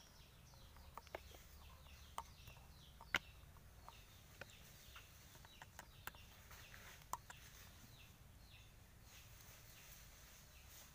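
Quiet background of repeated short bird chirps that fall in pitch, with a handful of light clicks and taps scattered through, the sharpest about three seconds in.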